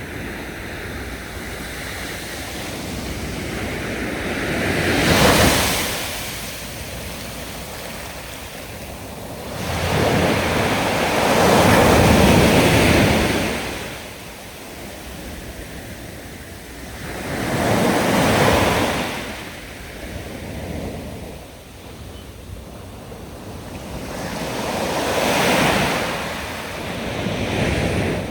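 Sea waves breaking and washing in, four surges about six to seven seconds apart, with a steady hiss of water between them.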